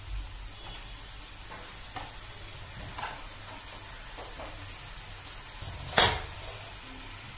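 A spatula spreading a layer of boiled rice in a metal kadai, with a few light scrapes and one sharp clack against the pan about six seconds in, over a faint steady hiss.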